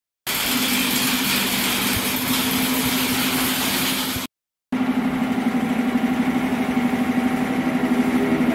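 Heavy truck's diesel engine idling steadily, a low even hum, with a brief dropout about four seconds in.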